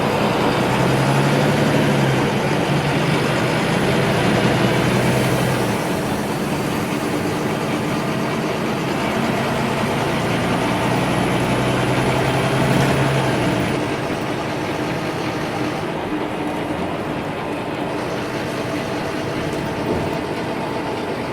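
Engine and road noise heard from inside a city bus. The engine note strengthens twice along with a faint high whine that rises and falls, and the noise eases off about fourteen seconds in.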